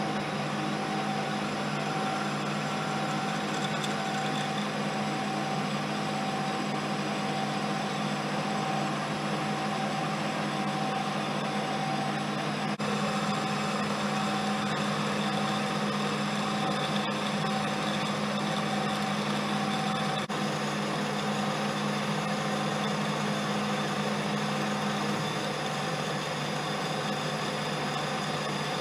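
A homemade lathe running steadily while a boring bar cuts the bore of a sleeve: an even motor and drive hum with a constant whine that holds unchanged throughout.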